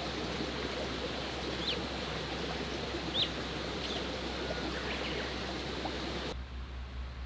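Steady rushing of running water, with a few short bird chirps over it. About six seconds in, it cuts abruptly to a quieter low hum.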